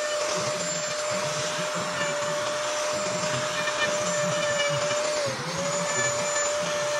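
Handheld electric power carving tool running steadily with a high whine while cutting rosewood, a hiss of grinding under it; the whine sags briefly about five seconds in.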